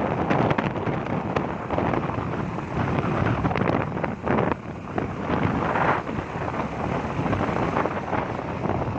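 Wind buffeting the microphone: a loud, uneven rushing noise that rises and falls with the gusts.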